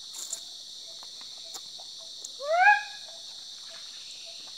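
Crickets trilling in a steady high-pitched chorus. An unseen animal gives one short rising call about two and a half seconds in, the loudest sound here, and a faint low pip repeats a few times a second.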